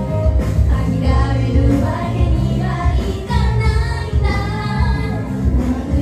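Japanese idol-pop song: a high female voice singing over pop music with a steady beat.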